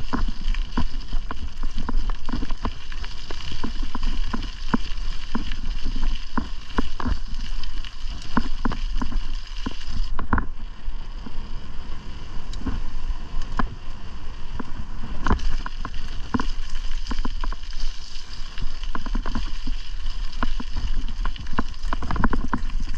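Riding a bicycle on a paved trail, heard from a camera on the bike: wind rumbling steadily on the microphone, with frequent sharp clicks and rattles.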